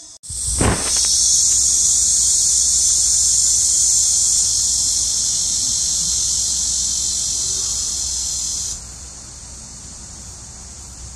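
Cicadas buzzing loudly and steadily in a high, hissing drone. It starts just after a brief thump and drops away abruptly about three-quarters of the way through, leaving a fainter hiss.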